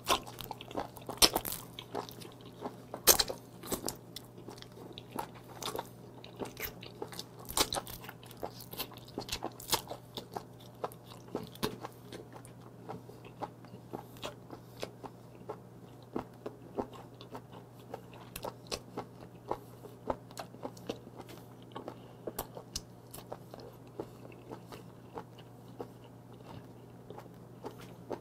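A person chewing a mouthful of raw live long-arm octopus (sannakji) close to the microphone: irregular wet clicks and smacks of the mouth, louder and more frequent in the first dozen seconds, then softer and sparser. A steady low hum runs underneath.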